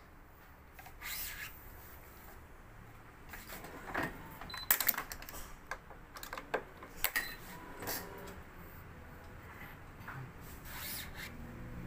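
Scattered clicks, taps and rubbing from stringing a badminton racket on a stringing machine: string pulled through the frame and machine clamps set. The sharpest clicks come in a cluster about five seconds in, with more around seven and eleven seconds.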